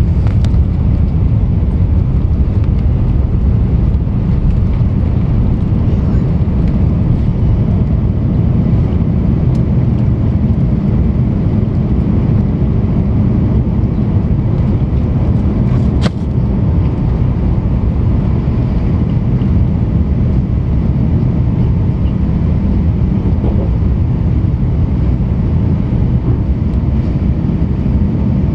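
Rolls-Royce Trent XWB-84 turbofan engines of an Airbus A350-900 running at takeoff thrust, heard from inside the cabin over the wing as the aircraft lifts off and climbs: a loud, steady, deep rumble with a faint steady whine above it. A single sharp knock sounds about halfway through.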